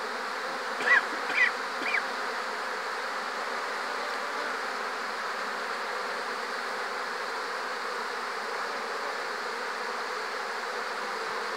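Steady buzzing of a large number of honeybees flying in and out of hive entrances: heavy foraging flight traffic during a pollen and nectar flow. Three short louder sounds stand out about a second in.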